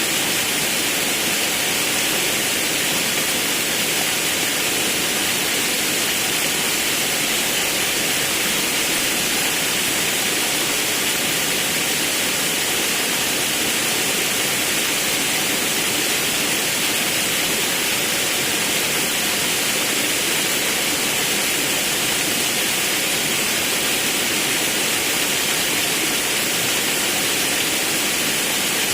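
Rushing forest river water: a steady, unbroken hiss of flowing water.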